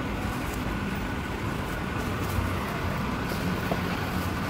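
Steady low mechanical hum with a faint steady whine above it, the background drone of a concrete parking garage.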